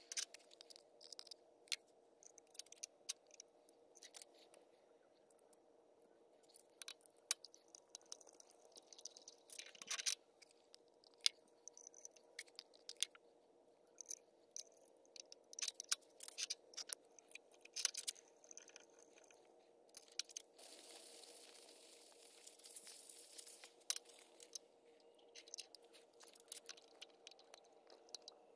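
Light clicks, taps and scrapes of small steel parts as a boring head is handled and its screws are turned with a hex key. Past the middle comes a few seconds of continuous scraping, all over a faint steady hum.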